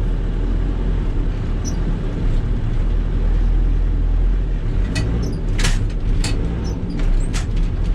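Volvo BL70 backhoe loader's diesel engine running steadily as the machine is driven under auto-shift, with a few sharp clicks or knocks in the second half.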